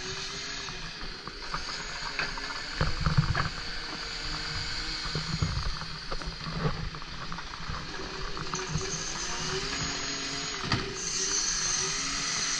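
Side-loading rubbish truck's engine and hydraulic bin-lifting arm working, with a whine that rises and falls in pitch. Heavy thuds come about three seconds in and again about five seconds in as the wheelie bin is handled.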